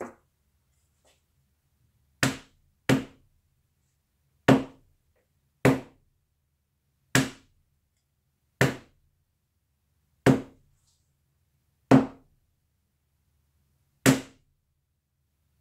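Tack hammer striking a hard painting panel: about nine sharp knocks spaced one to two seconds apart, each dying away quickly.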